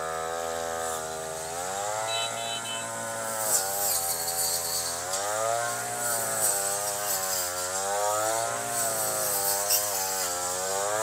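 Brush cutter's small petrol engine running as it cuts grass, its engine speed rising and falling over and over as the operator works the throttle through the growth.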